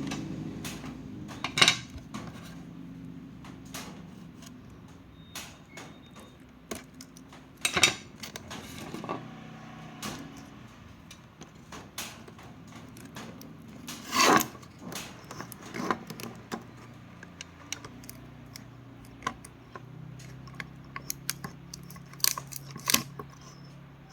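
Scattered clicks, clinks and knocks of small hard objects being handled, a few of them sharper and louder, over a low steady hum.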